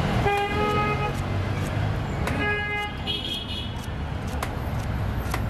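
Street traffic with vehicle horns honking three times: a toot lasting most of a second just after the start, then two shorter ones in quick succession about halfway through, the second higher-pitched. Underneath runs a steady low rumble of engines, with scattered light clicks.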